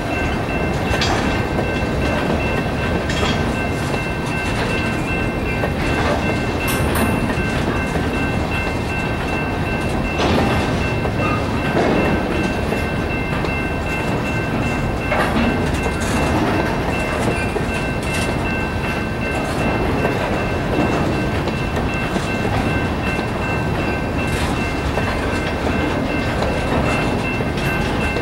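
Freight train of hopper and gondola cars rolling steadily through a level crossing, wheels rumbling and clacking over the rail joints. A steady high tone from the crossing's General Signals Type-2 electronic bell sounds over it.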